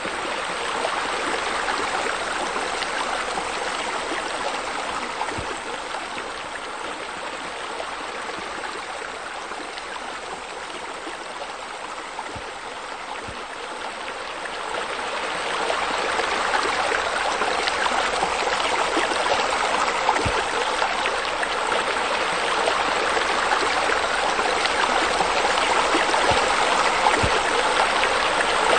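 Steady running water, a stream-like rush with trickling; it grows louder about halfway through.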